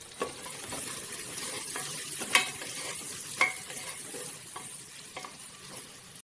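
Chopped onions sizzling in hot oil in an aluminium pressure cooker as a spatula stirs them, with a few sharp knocks of the spatula against the pot, the loudest about two and a half seconds in.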